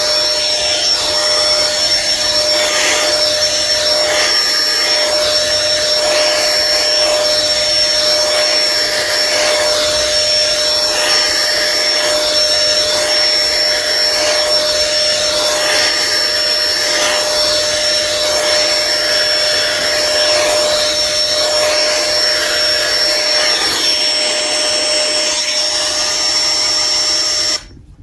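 Played-back recording of an electric appliance motor running: a steady whine over a rush of air, cut off abruptly near the end.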